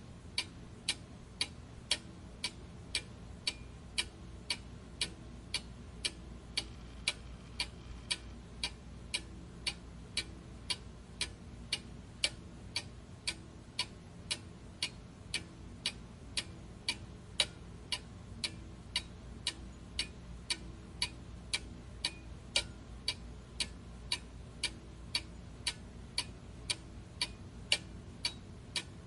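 Steady, even ticking, about two ticks a second.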